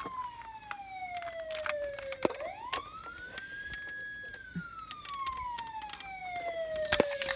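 Police-style wail siren: one tone falls slowly, sweeps back up about two seconds in, holds high, then falls slowly again, with scattered light clicks throughout.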